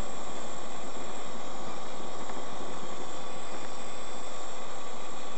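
Steady road and engine noise of a moving car, heard from inside the cabin through a dashcam microphone, with a faint steady whine.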